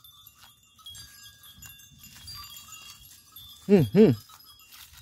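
A goat bleating twice in quick succession near the end, two short loud calls, over faint thin high-pitched tones.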